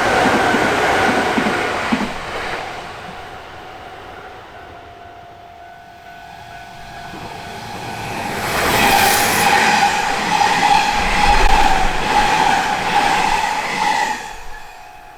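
Nankai Main Line trains passing over a level crossing: wheels clattering over the rails as one train goes by, dying away after about two seconds. About eight seconds in, another passes, louder, with a steady high whine, until it cuts off near the end.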